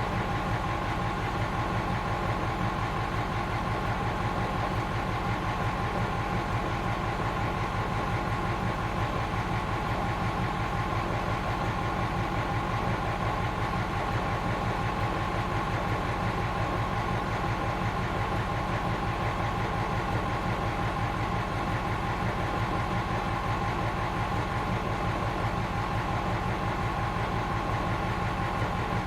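Fire engine's engine idling steadily, with an even low pulse and a constant whine above it.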